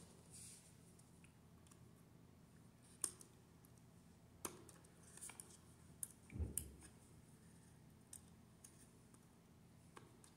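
Near silence, broken by a few faint clicks and a soft thump as a small screwdriver and a thin copper wire are worked against the screw terminals of a plastic phone jack. The sharpest click comes about three seconds in, and the thump just past the middle.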